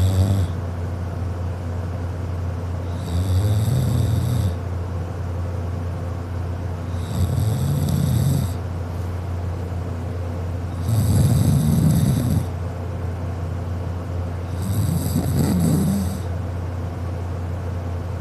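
A sleeping person snoring loudly, one snore on each in-breath about every four seconds: four snores of about a second and a half each, over a steady low hum.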